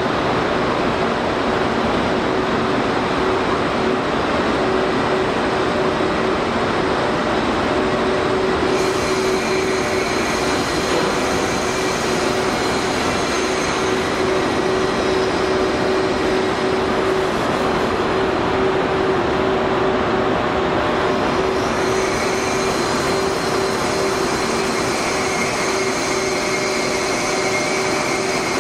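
Train noise at a railway station: a steady, loud rumble with a constant low hum running under it. Thin, steady higher whines come in about nine seconds in and again about twenty-two seconds in.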